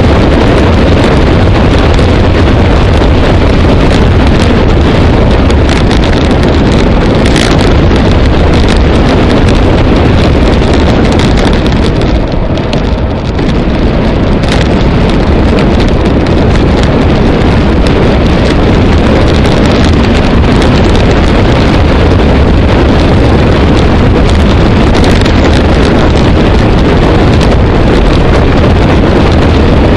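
Heavy wind buffeting on a bike-mounted camera's microphone during a fast road-bike descent, a loud, steady rumble that eases briefly about twelve seconds in.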